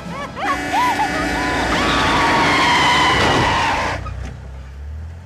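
A car horn blaring over screeching tyres, getting louder and cutting off suddenly about four seconds in, then a low rumble.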